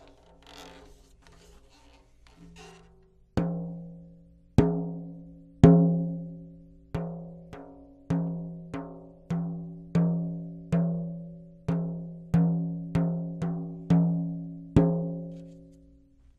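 A 10-inch tom with a new clear Evans head is tapped by hand about sixteen times, each tap ringing out at the same steady pitch and dying away within a second. The drumhead is being checked for even tuning. Light handling rustle comes before the taps.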